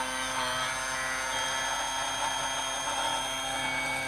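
Electric hand blender running steadily in a plastic jug, pureeing chunks of mango, with a constant motor whine.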